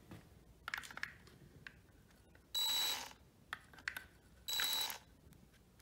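Cordless drill spinning a distributor shaft in two short runs of about half a second each, with a steady high-pitched motor whine. The shaft is turned so the points open and close for a dwell reading. A few light handling clicks come before the runs.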